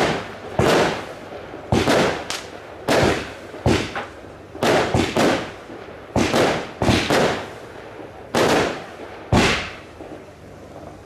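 Firework display: a run of loud firework bursts, roughly one a second, some coming in quick pairs, each bang trailing off in a fading echo.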